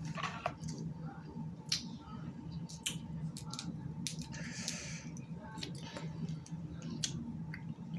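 Snow crab legs being cracked and picked apart by hand: scattered sharp snaps and clicks of shell, with a short wet squish about four and a half seconds in.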